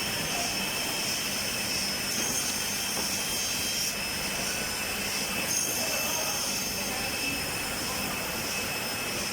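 Double end tenoner machining MDF cabinet board: a steady mechanical whir and hiss with a thin high whine held throughout.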